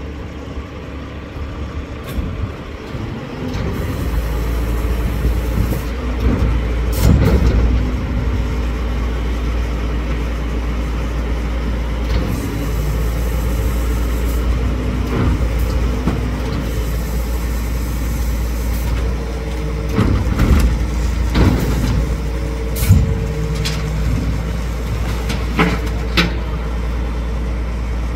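Rear-loading garbage truck running at the curb. Its engine drone steps up and grows louder about four seconds in, then holds steady, with scattered knocks and clanks from the wheeled bin at the lifter.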